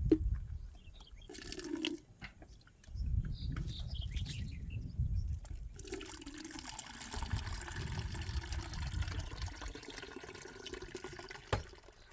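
Water pouring steadily, beginning about six seconds in, after a stretch of low rumbling and a few knocks.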